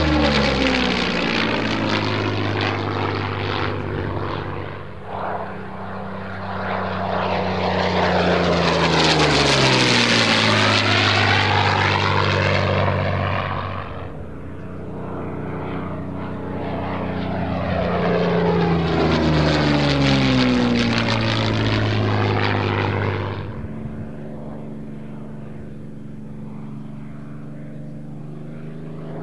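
Yakovlev Yak-3 fighter's piston engine and propeller flying past low twice, each pass swelling loud and then dropping in pitch as it goes by. Near the end it settles into a steadier, quieter drone as the aircraft comes in on landing approach.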